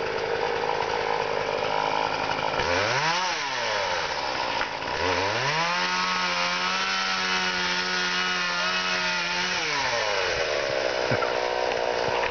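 Chainsaw engine revving: one brief throttle blip, then about five seconds held steady at high revs before dropping back to idle.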